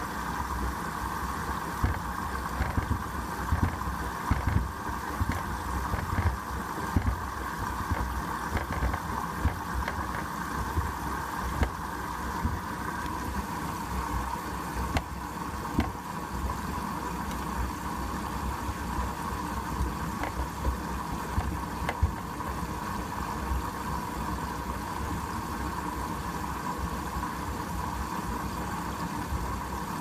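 Hoover WDYN 11746 PG8 washer-dryer drum turning a foamy load of rugs and shoes during a rinse: water sloshing over a steady motor hum, with a few light knocks.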